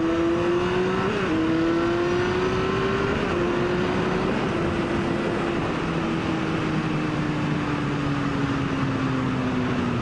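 Sport motorcycle engine running under way, with wind rushing over the helmet-mounted microphone. The engine note climbs over the first three seconds, drops a step about three seconds in, then falls slowly.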